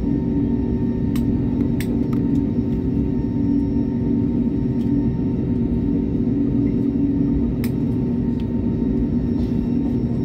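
Cabin noise of an Airbus A321neo taxiing after landing, its Pratt & Whitney PW1100G geared turbofans at idle giving a steady rumble with a low hum. A few light clicks sound over it.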